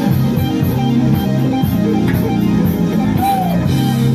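Live band music: an electric bass guitar playing a solo line of short stepping notes over a drum kit keeping a steady cymbal beat.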